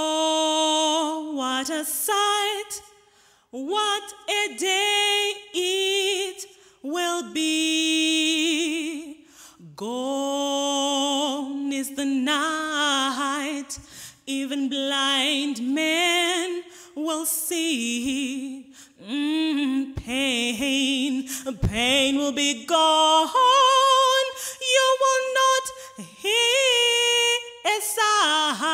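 A woman singing a gospel song solo and unaccompanied into a handheld microphone, in held notes with strong vibrato, phrase by phrase with short breaks for breath.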